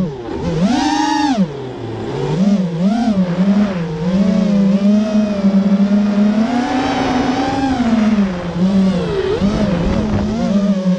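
Brushless motors of a 210-size FPV racing quadcopter (Hobbywing X-Rotor 2204 2300kv motors with 5-inch props) whining, heard from the onboard camera, their pitch rising and falling quickly with the throttle as the quad banks and climbs.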